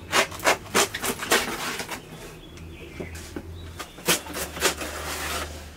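A fresh banana leaf being slit along its midrib with a curved iron blade: a quick run of crisp ripping strokes, then a longer tearing rasp. A second run of strokes and rasp follows about four seconds in.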